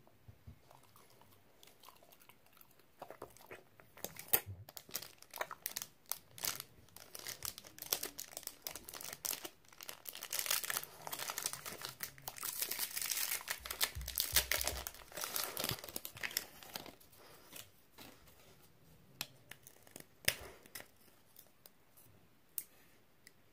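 Close, dense crunching, crinkling and tearing sounds start a few seconds in. They are thickest in the middle and thin to scattered clicks near the end: a French bulldog chewing, with a stick-shaped dog treat being handled and torn.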